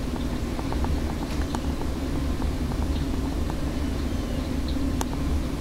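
A steady low rumble with a few faint, sharp clicks scattered through it.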